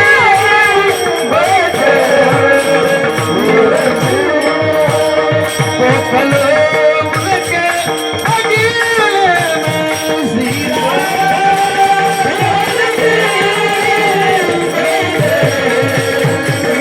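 Marathi Warkari kirtan music: a male voice sings long, high, wavering melodic passages without clear words. It sits over a steady held drone, a pakhawaj drum beat and jingling hand percussion.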